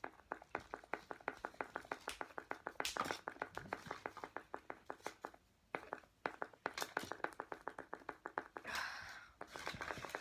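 A wooden stirring stick stirring slime mixture in a cup, clicking rapidly against the side about six times a second, with a short pause partway through.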